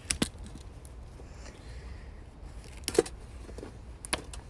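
Handling noise: a few sharp clicks and knocks as a toy rifle is laid on the ground and a canvas shoulder bag is rummaged through. The loudest knock comes about three seconds in.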